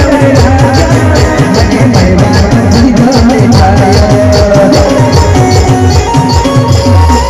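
Loud live timli band music: a driving drum beat with regular cymbal strokes and a held melody line over it.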